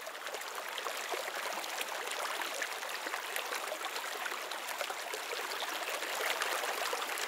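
Shallow rocky stream rushing over boulders in small cascades: a steady splashing rush of water.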